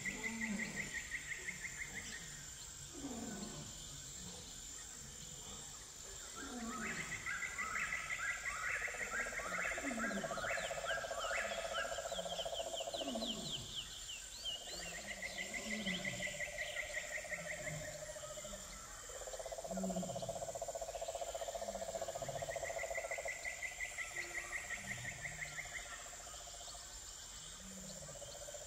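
Wildlife calls: pulsed trills repeating every several seconds, a lower buzzing trill and short low croaks, over a constant high insect-like whine.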